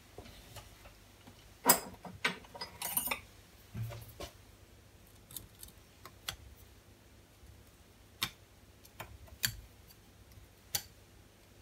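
Scattered small metal clicks and taps, irregular and a dozen or so, the loudest a couple of seconds in, as a driver and the clamp screw are worked at a lathe's tool post to turn round a chipped carbide insert.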